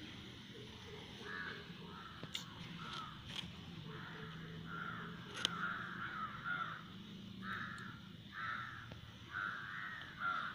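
Crows cawing repeatedly, a run of short harsh caws that comes and goes, with a few faint clicks between them.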